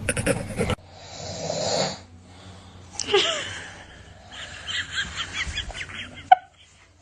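A man snoring in his sleep: loud, harsh snoring breaths, followed later by a run of short pitched vocal bursts.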